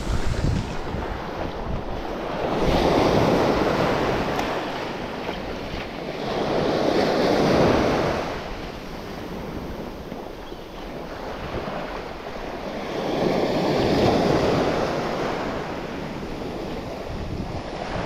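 Sea surf breaking and washing up a beach, surging three times a few seconds apart, with wind rumbling on the microphone.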